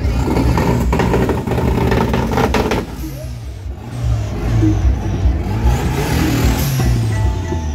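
Car engines and exhausts revving as several cars roll slowly past. The sound is heaviest in the first three seconds, with a rising rev about six seconds in.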